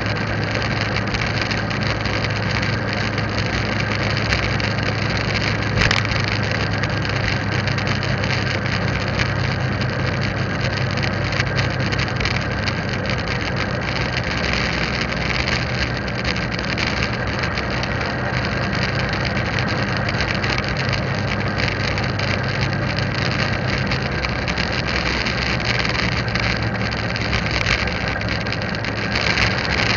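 Motorbike engine running steadily while riding along a road, under a constant rush of wind and road noise, with a single brief click about six seconds in.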